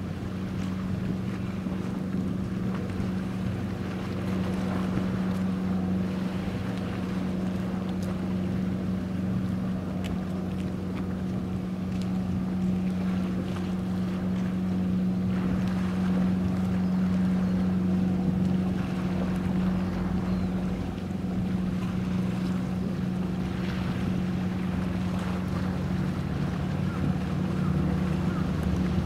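Steady machinery hum from the destroyer escort DE-229 Abukuma's engines as the warship passes, one constant low drone with fainter overtones, with wind rumbling on the microphone.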